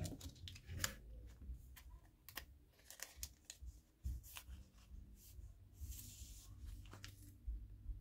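Silver foil bromide packet handled with crackles and light clicks, then torn open with a short rip about six seconds in as a photo card is pulled out.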